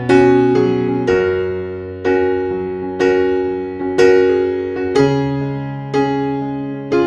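Background music: an electric piano playing a slow, gentle chord pattern, a new chord struck about once a second and fading over a steady bass note.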